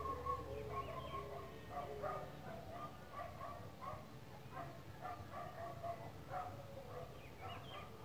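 Faint, repeated short animal calls in the background, scattered irregularly, over a low steady hum.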